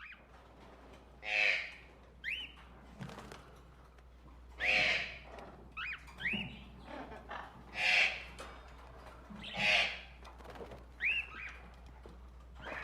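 Forest birds calling: four loud, harsh squawking calls a couple of seconds apart, with short whistled notes between them that rise and fall.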